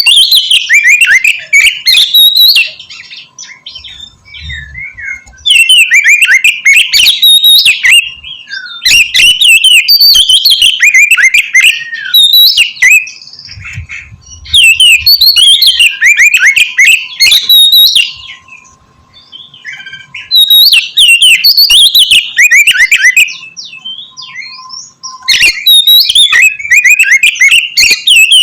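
Oriental magpie-robin (kacer) singing loudly in repeated phrases of a few seconds each, packed with rapid, varied whistles and chattering notes. Separated by short pauses, it is the aggressive 'fighter' song meant to provoke rival magpie-robins.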